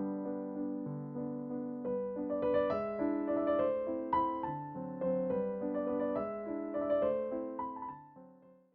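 Gentle piano music, a melody of single notes over sustained chords, fading out near the end.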